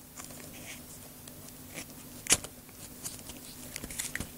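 Small clicks and taps of remote-control car parts being handled and pushed into place by hand, with one sharper click about two seconds in and a few quicker ones near the end.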